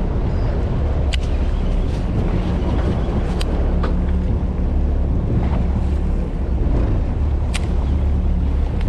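Fishing boat's engine running steadily with wind buffeting the microphone and water noise over it. Three sharp clicks stand out: about a second in, around the middle, and near the end.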